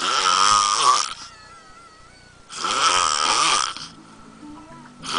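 A big man snoring loudly in deep sleep: two long, fluttering snores about two and a half seconds apart, each lasting a little over a second, with a third starting near the end.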